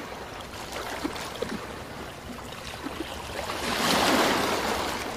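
Rushing, crackling noise of an animated logo-intro sound effect, with a few small crackles, swelling to its loudest about four seconds in and then fading.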